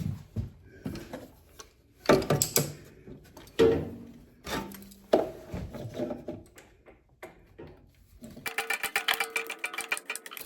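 Metal hand tools clinking and clattering as Allen wrenches are picked out and put to work, with a fast, even run of clicks over the last two seconds.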